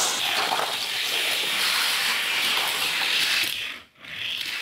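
Die-cast toy cars rolling down a plastic race track, a steady whirring hiss that drops out briefly near the end.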